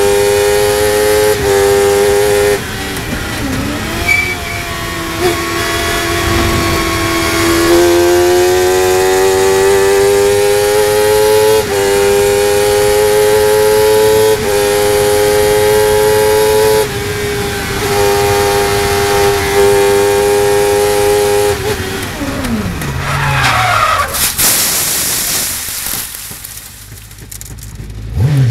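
Honda CBR1000RR inline-four bike engine in a Spire GT3 racer at full throttle, its note rising and stepping with quick gear changes. Near the end the engine note drops away as the car spins off backwards, with a short burst of skid and gravel noise, then goes quieter as the car comes to a stop in the gravel trap.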